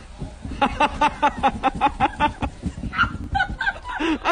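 An animal calling in a rapid run of about a dozen short, pitched, honk-like calls, about six a second, followed by a few scattered calls.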